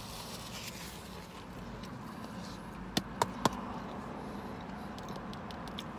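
A plastic dessert cup being handled, with three sharp clicks about three seconds in, over a low steady hum.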